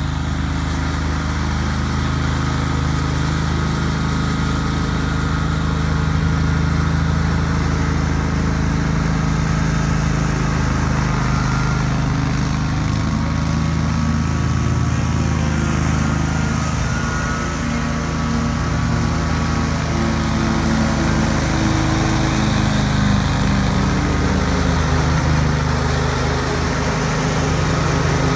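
Engine of a 2003 Great Dane 52-inch stand-on commercial mower (GDSS23KAE) running steadily under load, its blades cutting tall grass.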